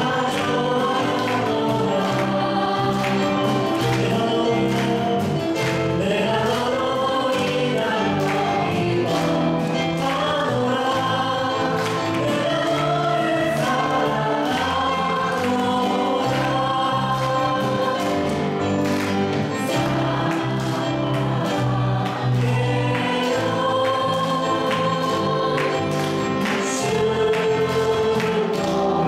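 Church praise team of two women and a man singing a Korean worship song together into handheld microphones, over instrumental accompaniment with a steady beat.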